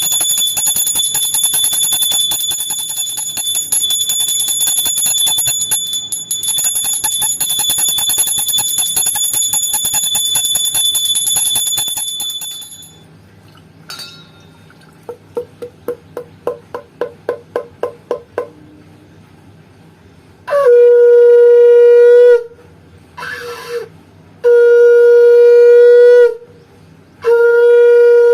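A brass puja hand bell rung steadily for about thirteen seconds, then a conch shell (shankha) blown in long single-pitch blasts: two full blasts with a short one between them, and a third starting near the end.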